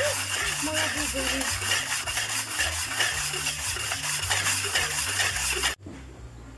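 Steady gritty scraping and sloshing of a hand working a lump of clay in a ceramic pot of brown clay slip, with faint voices behind. It cuts off suddenly about five and a half seconds in, leaving a much quieter background.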